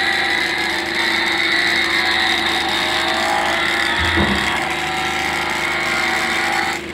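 Battery-powered toy Pagani Zonda Revolución model car playing its recorded engine sound effect through its small built-in speaker, revving with a rising pitch about three seconds in, then stopping abruptly near the end. A brief low bump about four seconds in.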